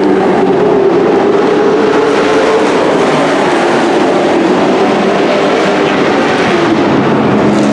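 Dirt-track race trucks' engines running at racing speed, a loud, steady drone from the field as trucks pass by on the oval.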